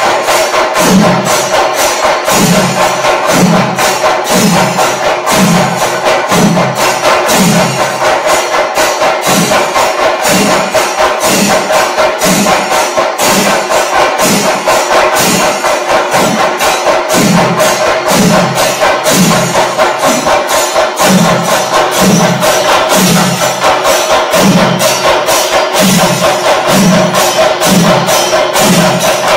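Chenda drum ensemble playing panchari melam: a dense, unbroken stream of sharp stick strokes on the drumheads over deep beats that come evenly about three times every two seconds.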